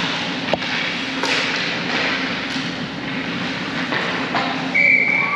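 Game noise from a youth ice hockey scrimmage in a rink: a steady background wash with a sharp knock about half a second in, typical of a stick or puck hitting, and a high steady tone starting near the end.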